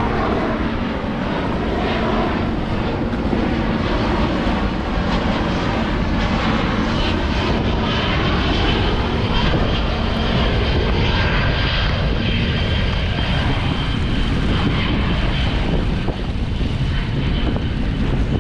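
A C-17 Globemaster III's four turbofan jet engines run loud and steady as the big transport flies low overhead. The tone slowly sweeps and shifts as the aircraft passes.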